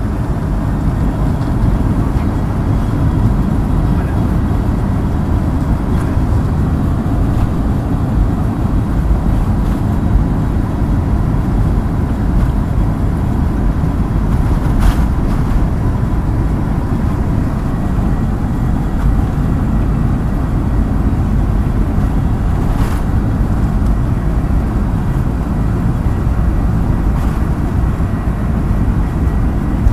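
Boeing 737's jet engines running steadily at takeoff thrust, a loud, deep rumble with a faint steady whine on top, after a sharp rise in power just before.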